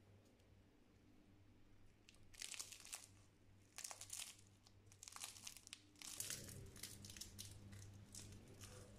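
Flaky baked apple pastry crackling and tearing as it is pulled apart by hand, in faint, crisp bursts of crackle that start about two seconds in and come in several clusters.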